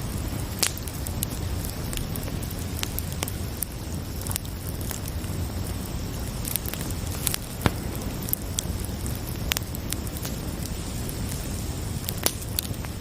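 Campfire crackling, with irregular sharp pops over a steady low rumble and hiss, and crickets chirping faintly in the background.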